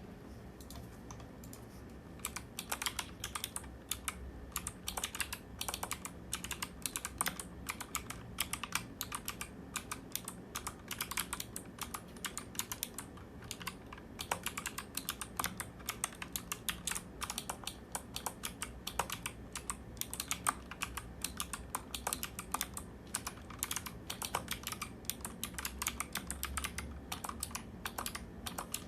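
Typing on a mechanical keyboard fitted with NovelKeys x Kailh BOX Thick Click clicky switches: a fast, irregular run of sharp keystroke clicks that starts about two seconds in.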